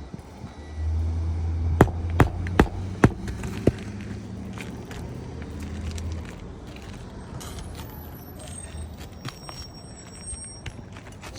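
A hammer driving roofing nails into asphalt shingles: about five sharp strikes in quick succession, over a low rumble that fades after a few seconds.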